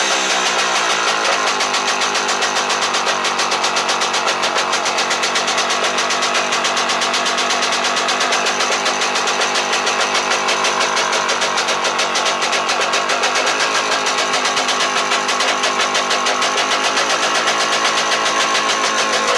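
Fichtel & Sachs Stamo 202 single-cylinder two-stroke stationary engine running steadily on its test run after a rebuild, with a fast, even firing rhythm.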